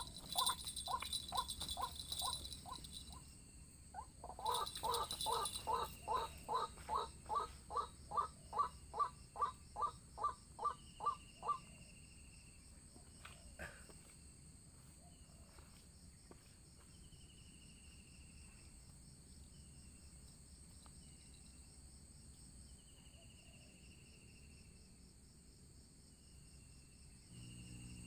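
White-breasted waterhen calling a harsh, evenly repeated note about two or three times a second, in two runs that stop about twelve seconds in. Insects drone steadily, and another bird repeats a short, falling whistle.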